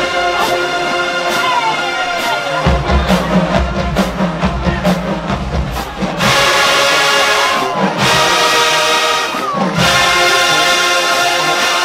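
College marching band playing loudly: brass section and drumline, sharp drum hits through the first half, then full held brass chords that swell about six seconds in and again near the end, with a few sliding notes.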